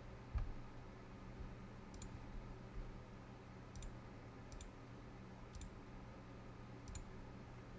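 Computer mouse clicking: about five sharp, separate clicks spread over several seconds, with a soft low thump about half a second in, over a faint steady low hum.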